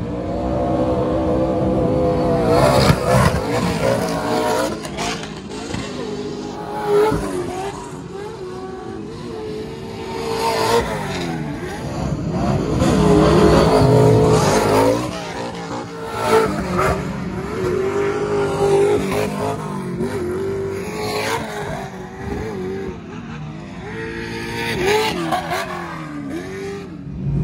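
Short-course off-road race trucks running practice laps on a dirt track, engines revving up and falling off again and again as they pass one after another.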